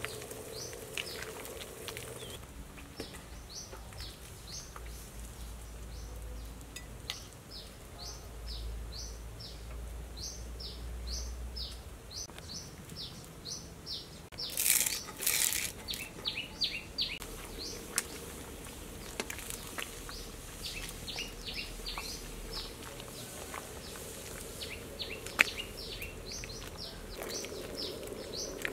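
Small birds chirping over and over in short, quick notes that fall in pitch, coming in runs of several at a time. About fifteen seconds in there is a brief, loud burst of noise.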